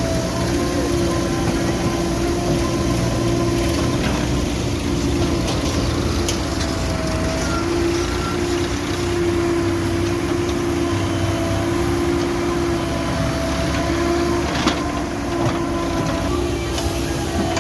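Diesel engine of a JCB 3DX backhoe loader running steadily under working load with a constant whining hum, with a few short knocks or clanks from the machine at work.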